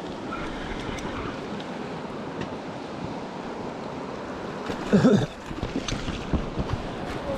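Steady rush of a fast river running over rocky riffles, with wind on the microphone. About five seconds in there is a brief loud burst, followed by a few light knocks.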